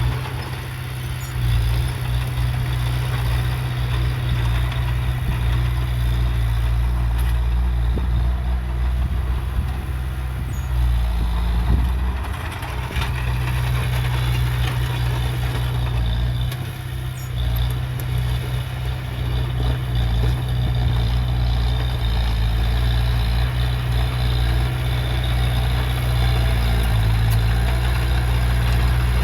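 Heavy diesel engine of earthmoving machinery running steadily with a deep drone. The loudness dips briefly a few times, with a short knock about twelve seconds in.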